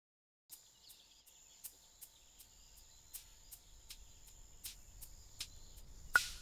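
Faint designed sound for an abstract animation: a thin, steady high whine with soft clicks about every half second. Near the end a sharper click carries a short pitched ping.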